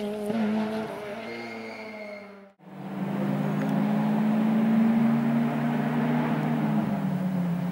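Rally car engine pulling away and fading, its revs rising and falling. After a sudden break, another rally car's engine is heard approaching, holding steady high revs.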